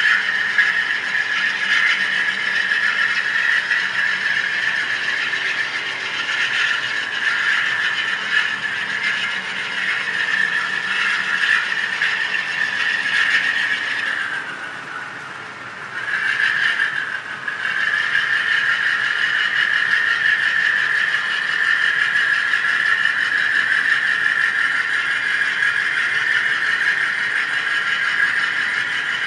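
HO-scale Korea Brass U25C model diesel locomotive with a TCS WOWsound decoder, pulling a long freight train: the decoder's diesel engine sound from the locomotive's small speaker runs together with a steady rattle of the wheels rolling on the track. The sound is briefly quieter a little past halfway, then carries on as before.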